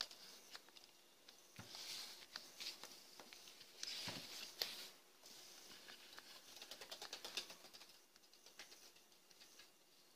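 Faint handling noise from an angle grinder that is switched off being turned over by hand: light clicks, taps and short rustles, with a quick run of small ticks about seven seconds in.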